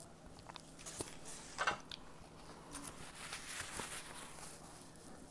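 Close-up chewing of crunchy snack food right at an earbud microphone: scattered crisp crunches and mouth clicks, with a denser stretch of crackling from about three seconds in.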